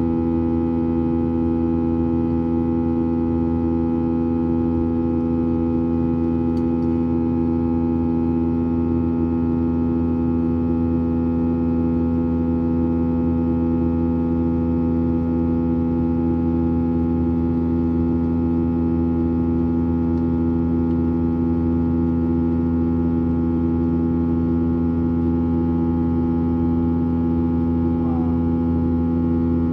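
Cabin drone of a Boeing 737-800's CFM56-7B turbofan engines heard from inside the cabin: a steady hum of several held tones over a low noise.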